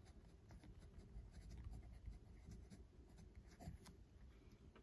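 Faint scratching of a Montblanc Meisterstück 146 fountain pen's fine 18-karat gold nib on paper as a word is written in short strokes.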